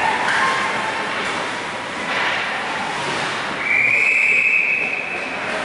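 Ice hockey referee's whistle blown once, a single steady high blast of about a second and a half starting past the middle, over a steady noisy rink background; the blast stops play.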